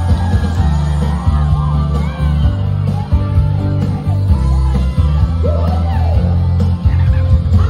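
Live rock band playing loud, with electric guitar and a heavy, booming bass line, a woman singing, and fans in the crowd yelling and singing along.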